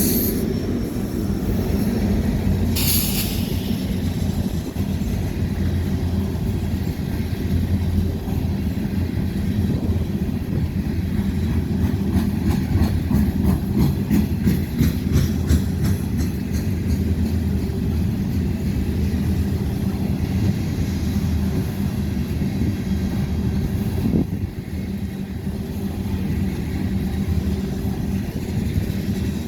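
Freight coal train's cars rolling past with a steady low rumble and rattle. There is a brief high screech about three seconds in, and a run of rapid clicks from the wheels midway.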